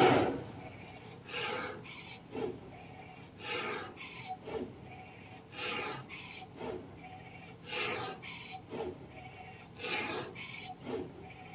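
Grooving blade of a CNC oscillating knife cutter scraping through 9 mm polyester fibre acoustic board, a rasping scrape repeating about every two seconds, each louder stroke followed by a shorter, softer one. A brief loud burst comes right at the start.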